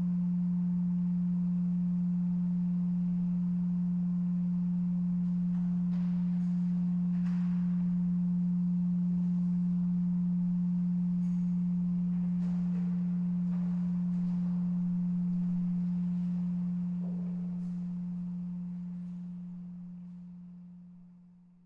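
A pipe organ holds a single low, nearly pure tone. A few faint light clicks sound above it. The tone fades away over the last several seconds.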